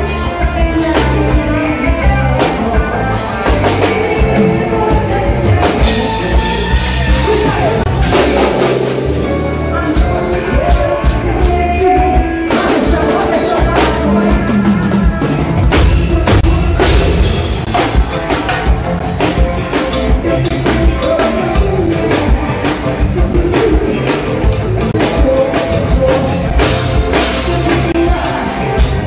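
Live band music with a woman singing into a microphone over a steady drum-kit beat, loud through the stage PA.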